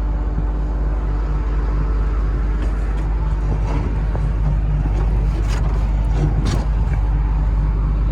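Komatsu PC300LC-7 excavator's diesel engine idling steadily, heard from inside the cab, with a few light clicks or rattles a little over halfway through.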